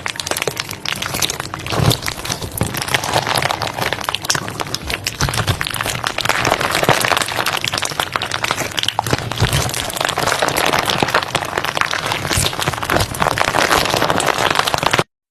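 Crunchy slime being squeezed and worked by hand, a dense, continuous crackle of tiny pops and crunches that cuts off suddenly near the end.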